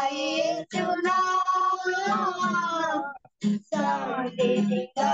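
Music: a singing voice with instrumental accompaniment, sung in phrases with short breaks about a second in, a little past the middle, and near the end.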